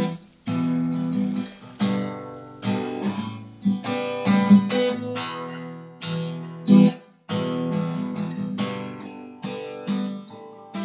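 Background music on acoustic guitar: strummed chords, one every second or so, each ringing and fading.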